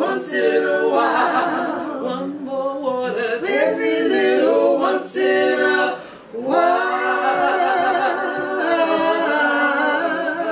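Three women singing a cappella in close harmony. A short break for breath comes about six seconds in, then the voices hold a long chord that slowly fades.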